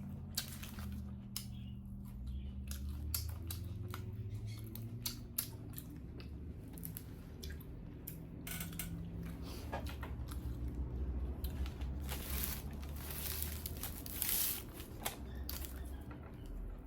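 Close-miked eating sounds: chewing with many small wet clicks and smacks over a low steady hum, with a brief stretch of rustling noise about twelve to fourteen seconds in.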